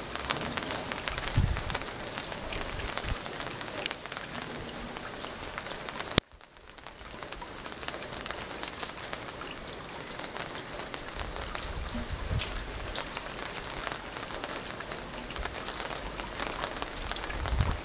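Steady rain falling on wet paving and a brim-full wooden rain barrel, with many small drop ticks and water splashing from a downpipe spout onto the barrel. A sharp click about six seconds in, after which the sound briefly dips, and a few soft low thumps.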